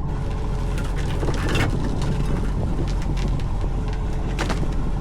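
Fishing boat's engine running steadily, with scattered knocks and clatter, the two plainest about a second and a half in and near the end.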